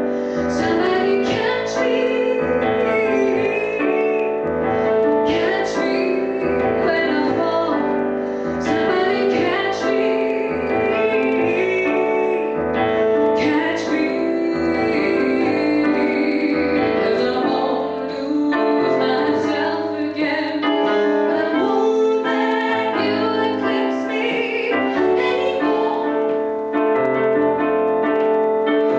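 A woman singing live while accompanying herself on a Roland digital piano, a continuous flowing song with sustained chords.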